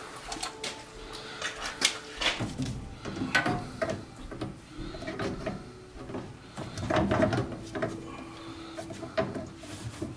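Irregular metallic clicks, clacks and knocks of a red-handled hand press tool being fitted and squeezed around a fitting on copper water pipe, making a solderless joint.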